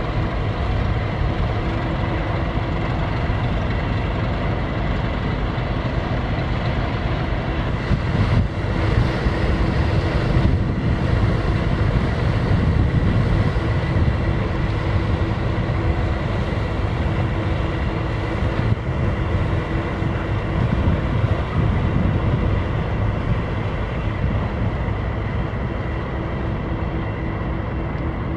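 Ship's diesel engines running steadily: a continuous low rumble with a steady hum over it.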